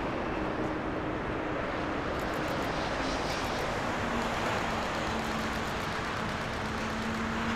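Jet airliner engines running: a steady rushing noise with a low hum through it.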